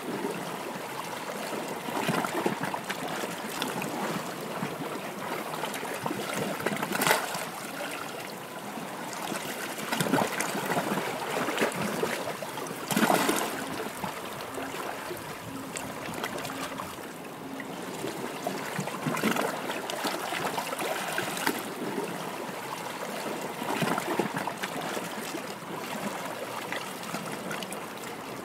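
Running water trickling and splashing steadily, with brief louder gushes every few seconds.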